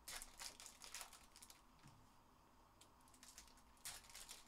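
Faint crinkling and clicking of a foil trading-card pack being torn open and its cards slid out, in short clusters in the first second and again near the end.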